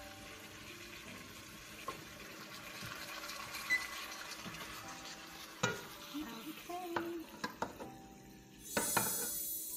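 Hot pan of vegetables and tofu sizzling, with metal clatters and knocks as the pan is handled and its contents are tipped into a pot of spaghetti. Music with a high shimmer comes in near the end.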